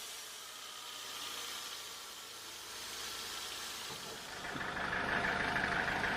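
A steady hiss, then about four seconds in an engine comes in and runs at a steady idle-like pace with a rapid even beat, louder than the hiss.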